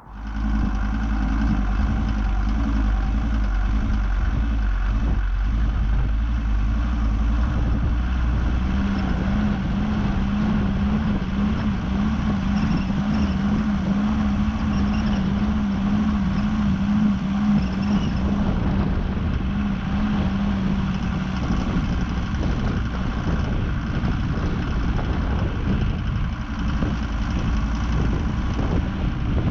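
A motor vehicle's engine running steadily under a deep rumble. From about nine seconds in, a wavering engine note stands out above it for some ten seconds.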